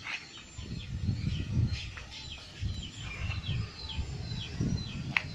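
Small birds chirping over and over, in quick falling chirps, over an uneven low rumble.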